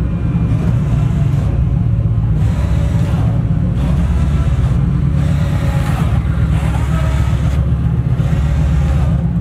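Kawasaki Vulcan 1700 Voyager's V-twin engine running with a steady low rumble, mixed with background music.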